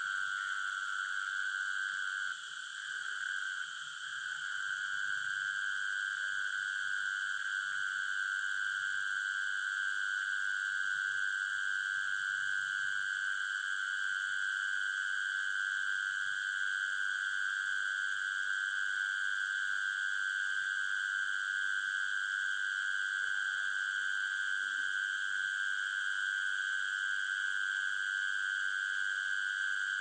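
Chorus of night insects: a continuous, high, shrill trilling drone with no pauses, dipping slightly in loudness for a moment about three seconds in.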